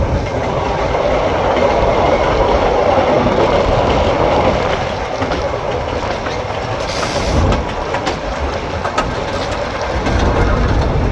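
Train running on the track: a steady noisy rumble with scattered clicks, and a short hiss about seven seconds in.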